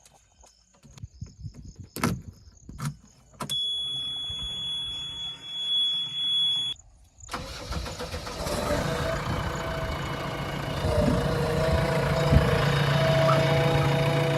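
JCB 3DX backhoe loader's diesel engine being started: a few clicks, a steady high beep with a low rumble for about three seconds, then a short pause before the engine catches about seven seconds in and keeps running.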